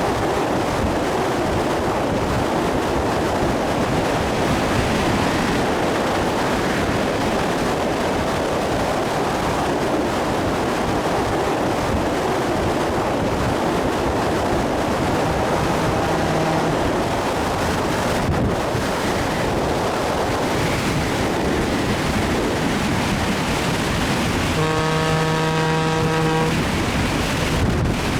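Train running with a steady rolling roar of wheels on rails. About two-thirds of the way in a locomotive horn sounds briefly and faintly, then near the end it gives a loud blast of about two seconds.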